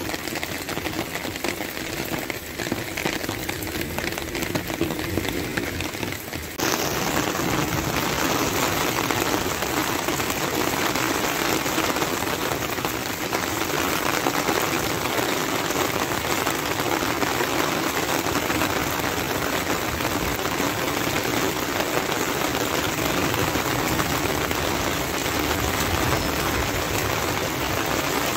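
Heavy rain pelting wet paving and a flooded street, a steady dense hiss of drops. It jumps abruptly louder about six and a half seconds in.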